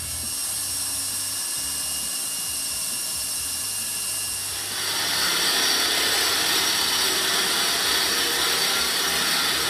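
Paint spraying onto the freshly ground steel bracket: a steady hiss that starts suddenly about halfway through and holds, with a fainter steady hum before it.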